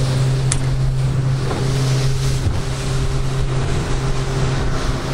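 Fishing boat's engine running steadily under way, a low, even drone, with wind on the microphone and water rushing past.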